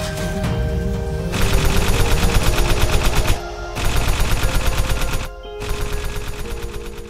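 Electronic background music with rapid, evenly spaced drum hits over held synth tones, broken by two short pauses.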